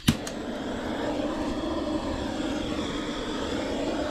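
A steady rushing noise with a low hum from a device that has been switched on to get a fireplace fire burning. A sharp click comes at the very start.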